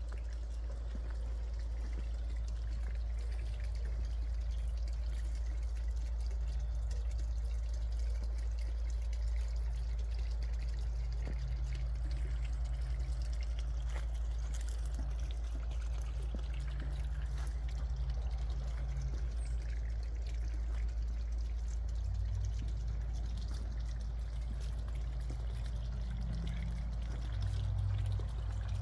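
Water trickling and splashing from a small garden fountain, with a steady low rumble underneath.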